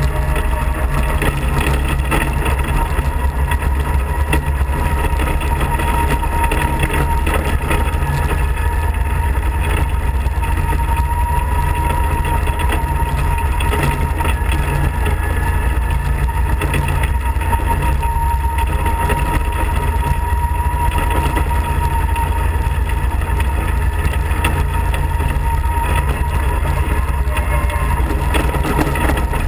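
Off-road kart's engine running steadily while driving along a wet gravel road: a loud, even drone heavy in the low end, with a thin steady whine on top.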